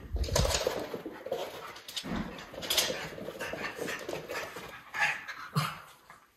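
Two miniature schnauzers vocalizing in rough, excited play, noises that can sound mean but are play, together with a few thumps as they run and chase.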